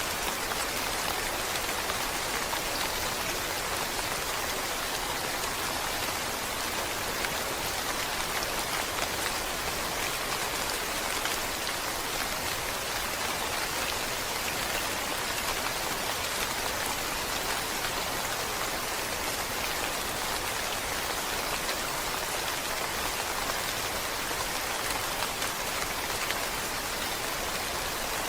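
Steady rain falling, an even hiss of drops with no breaks or changes.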